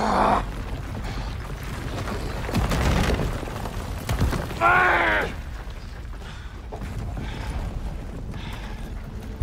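Film fight sound effects over a low, continuous rumble of crumbling stone and masonry: a short burst at the very start, a rough noisy crash about three seconds in, and a man's loud yell rising and falling about five seconds in.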